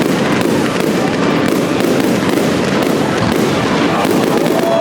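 Fireworks crackling, a dense continuous stream of rapid small pops without a break.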